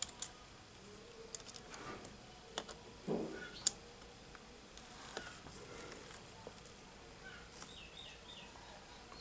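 Faint small clicks and taps of a mobile phone's circuit board and plastic parts being handled and pressed into place. A short run of bird chirps sounds in the background near the end.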